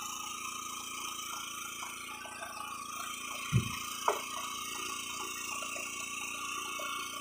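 An engine running steadily at idle on a small fishing boat. There is a single dull thump about three and a half seconds in, and a short click just after it.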